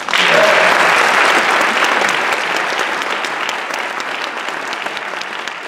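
Audience applauding, breaking out suddenly and loudest in the first couple of seconds, then easing slightly.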